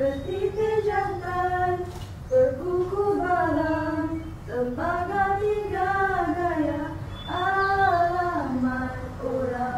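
A young woman's voice singing a slow melody solo without accompaniment, with long held notes that bend in pitch.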